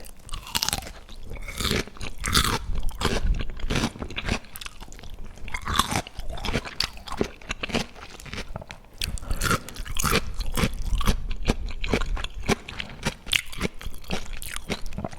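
A person chewing and biting food close to the microphone: many crisp crunches and wet chewing clicks in irregular runs.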